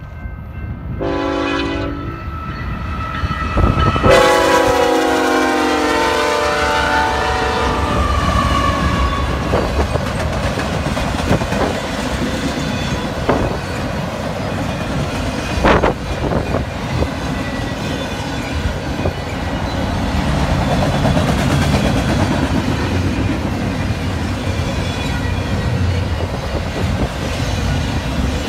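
Double-stack intermodal freight train passing close by. The locomotive horn gives a short blast, then a longer one whose pitch drops slightly as the locomotives pass. After that the container cars roll by with steady wheel rumble and clatter, and a couple of sharp clanks.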